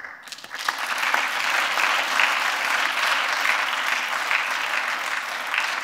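Audience applauding, building up within the first half second and then holding steady.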